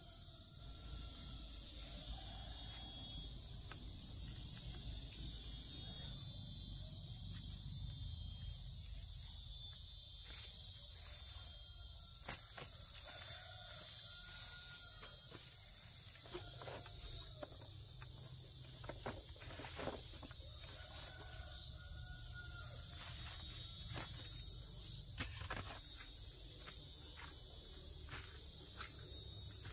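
Steady high-pitched insect chorus over a low outdoor rumble, with scattered sharp clicks and snaps throughout.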